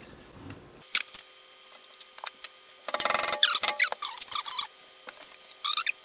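Power cord being handled and pressed into cable holders on a table board: a click about a second in, then scraping and squeaky rubbing around three seconds in and again briefly near the end.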